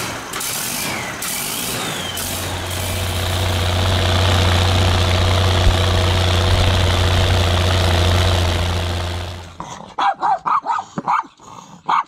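Ford tractor's diesel engine running steadily; its note grows louder about two seconds in, holds, and stops suddenly near the end. Terriers then bark repeatedly.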